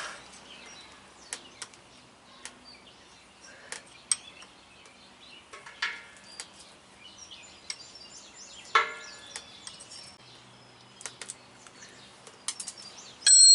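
Scattered light metal clinks and taps of hand tools on a truck driveshaft's U-joint as its bearing caps are worked loose, with one louder ringing clank about nine seconds in and a short sharp high ring near the end.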